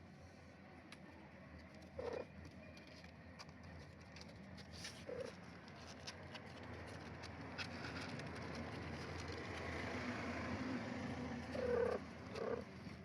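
Cat meowing four short times, the loudest meow near the end, over a background rumble that grows louder in the second half.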